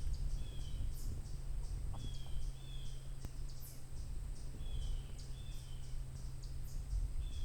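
Woodland ambience: short, high chirps from a bird, coming in pairs about every two and a half seconds, over a steady low rumble and faint, even high ticking a few times a second.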